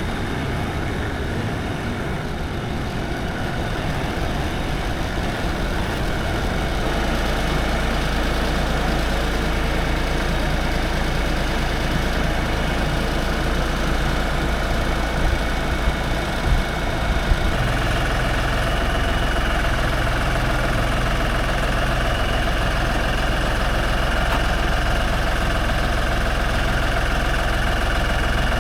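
Tractor engine running steadily as it carries a sawmill on its forks. It grows a little louder a few seconds in, a few knocks come about 15 to 17 seconds in, and then the engine settles into a steadier, slightly higher note.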